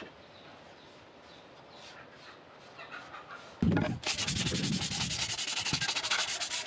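Sandpaper rubbed rapidly back and forth by hand over a wooden axe handle. It starts about three and a half seconds in, just after a low thump; before that there is only faint background sound.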